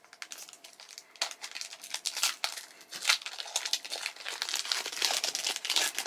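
Crinkling of a Pokémon trading-card booster pack's foil wrapper as it is handled and torn open, in quick, uneven crackles.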